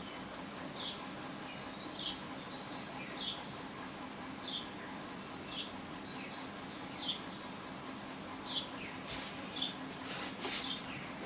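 A small bird chirping faintly over and over, one short falling chirp about once a second, with a faint steady high-pitched pulsing in the background.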